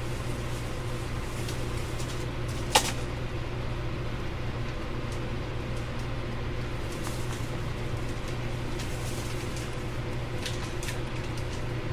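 JR Kyushu 813 series electric train running at a steady pace, heard from inside the car: a constant low rumble with a faint steady whine. One sharp click stands out about three seconds in, with a couple of faint ticks near the end.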